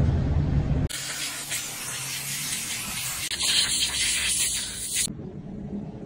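Compressed-air blow gun blasting air through a generator's foam air filter to blow the dust out of it: a loud, steady hiss that starts abruptly about a second in and cuts off about four seconds later. A low rumble fills the first second.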